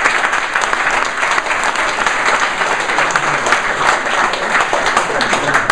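An audience applauding steadily, many hands clapping at once, at the end of a presentation.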